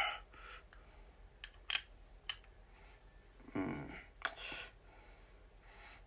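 Handling noise from a microphone and its small tripod stand being fitted together: three light clicks, then two short rustles about halfway through.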